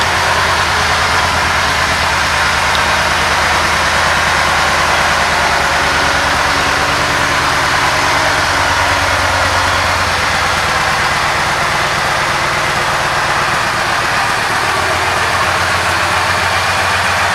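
Yamaha Raider S's 1854 cc air-cooled V-twin idling steadily.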